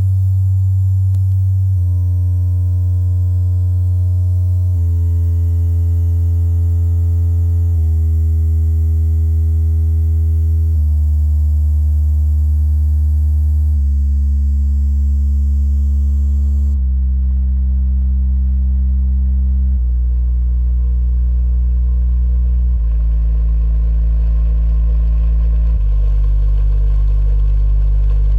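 Klipsch HD Theater SB 3's 10-inch wireless subwoofer playing a bass tone test: a loud, steady low tone that steps down in pitch about every three seconds, with overtones sounding above each step.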